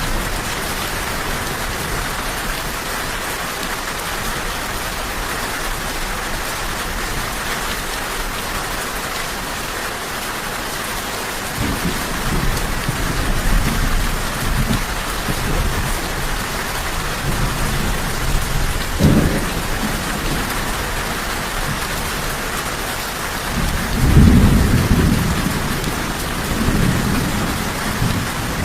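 Steady rain falling, with low rolls of thunder starting about twelve seconds in, a short sharper crack a little later, and the loudest rumble near the end.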